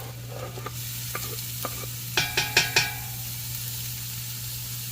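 Onions and diced ham sizzling in olive oil in a heavy-bottomed pot, with about four quick clacks of a utensil against the pot a little past two seconds in as the food is stirred.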